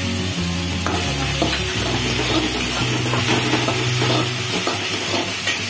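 Chopped onion, garlic, chilli and capsicum sizzling in oil in a kadai over a high flame, with a flat metal spatula stirring and scraping them across the pan.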